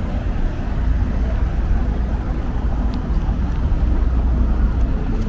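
Steady city street noise with a heavy low rumble and no single event standing out.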